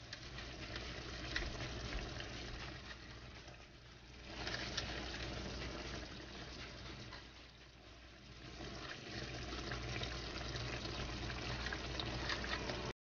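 Beef simmering in its soy-sauce and vinegar marinade in a frying pan: a steady, crackly bubbling hiss that rises and falls in loudness.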